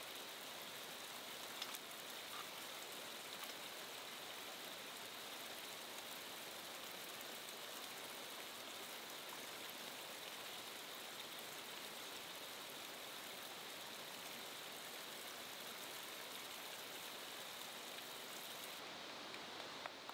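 A river flowing: a steady rushing hiss of water.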